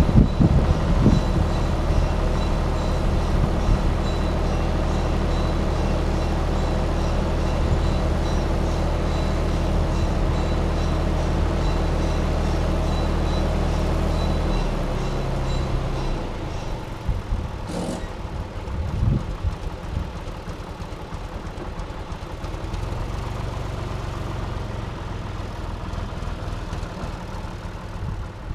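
John Deere tractor engine running steadily with a forage loader wagon hitched on. About halfway through, the engine drops to a lower, quieter note. A short click and a low thump come a few seconds later.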